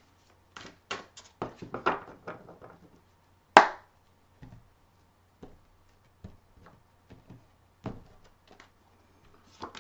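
Tarot cards being shuffled by hand: a quick run of soft card slaps and flicks, one sharp crack about three and a half seconds in, then scattered light taps and a knock near the end as the deck is set down on the wooden table.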